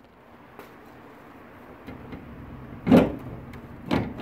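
Handling noise on the recording phone: after a quiet stretch, muffled knocks and rustles as the phone is handled, the loudest about three seconds in and another about a second later.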